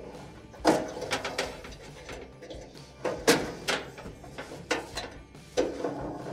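Wire spade connectors being pushed onto the terminals of an LG dryer's heating assembly, making a string of sharp clicks and metallic rattles with brief ringing from the sheet-metal heater casing, in small clusters a second or more apart.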